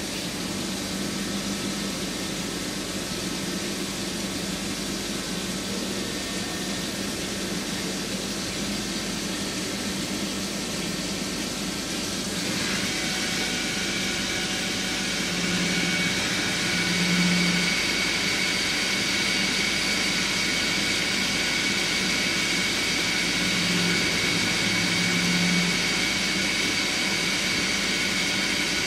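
Swiss-type CNC lathe running, its spindle turning a bar against the tooling under a spray of cutting oil: a steady mechanical whir with an even hiss. About 12 seconds in, a high steady whine sets in, and the low hum swells briefly twice in the second half.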